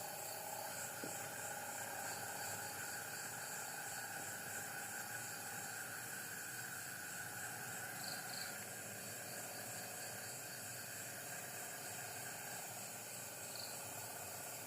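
Night insects such as crickets chirping steadily, a high, rapidly pulsing trill over a constant hiss of insect noise.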